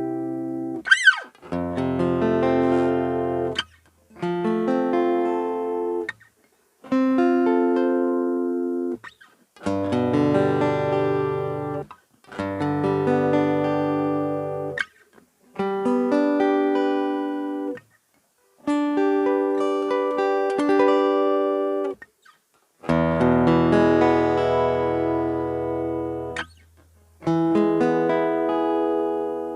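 Cort AD810 OP steel-string acoustic guitar playing a series of about ten chords, one at a time. Each chord rings for about two to three seconds and is then damped, with a short gap before the next. There is a brief sliding squeak about a second in.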